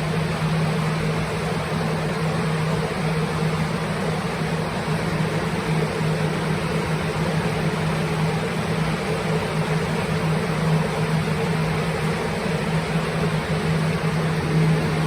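Plastic air-mover fans used for drying water damage, running steadily: a loud rush of air with a constant low motor hum.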